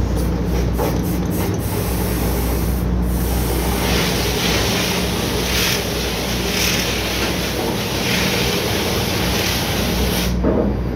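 Oil-well drilling rig machinery running steadily on the rig floor, a constant low engine drone under a loud mechanical din. A few sharp knocks come in the first second and a half, and bursts of hissing come about four to seven seconds in.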